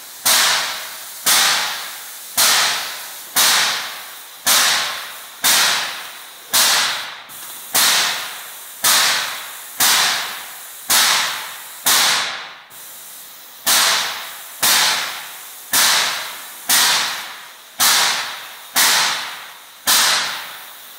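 Tornado Tiger 52:40 airless paint sprayer pump stroking while spraying epoxy: a sharp hiss-like burst about once a second, each dying away before the next, with one short break about twelve seconds in.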